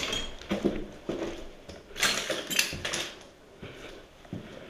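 Footsteps on a floor strewn with broken plaster and rubble, with the rifle and gear knocking and rattling: an irregular run of scuffs and clatters that grows quieter near the end.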